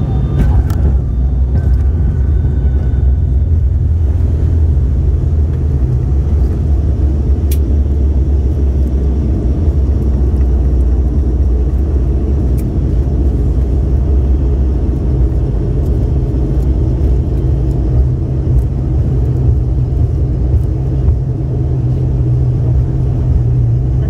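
Steady low rumble of a high-wing turboprop airliner heard from inside the cabin as it rolls along the runway after landing, with a steady engine hum running through it.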